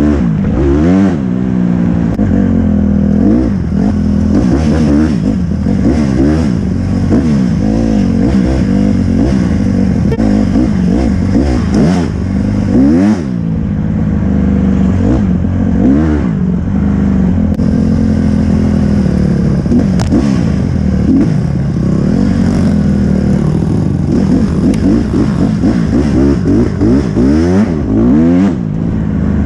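Dirt bike engine revving hard and easing off again and again as the bike is ridden over rough ground. Its pitch climbs and drops every second or two.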